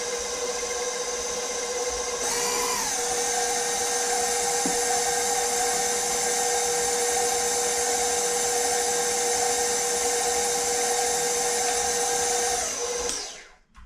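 KitchenAid electric stand mixer running steadily, mixing flour into peanut butter bar dough. About two seconds in its motor changes pitch and gets louder, as if stepped up a speed; near the end it is switched off and winds down.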